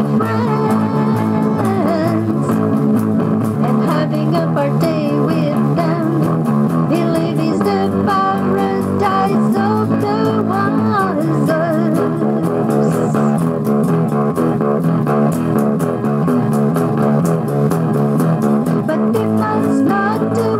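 A rock-blues song with electric guitar and bass guitar keeping a steady beat, and a bending melody line over them.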